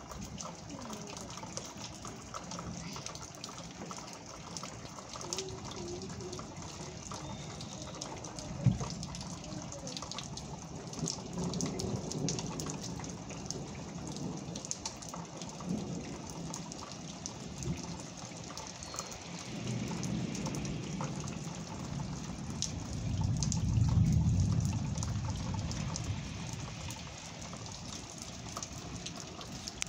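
Steady rain falling and pattering. About two-thirds of the way through, a low rumble of thunder swells, peaks and fades over several seconds.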